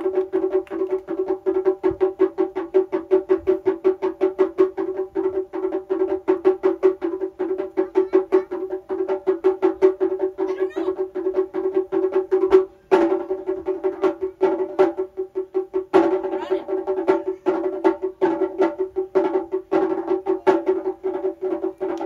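Taiko drums played in a fast, steady stream of stick strikes, the drumheads ringing at one held pitch. The strikes break off briefly just past the middle, then come back with heavier accented beats.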